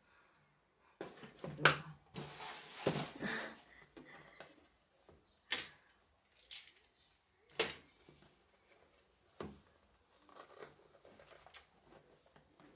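Handling and opening a cardboard smartphone retail box: a burst of rustling and scraping a second or so in, then several separate sharp clicks and taps as the box is turned and its seal worked loose.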